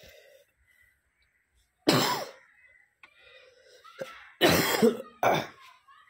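A person coughing three times: once about two seconds in, then twice in close succession near the end.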